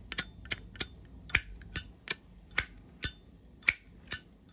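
Brass Zippo lighter lid flicked open and snapped shut over and over: about a dozen sharp metallic clicks, several of the opening clicks followed by a short, clear ringing ping.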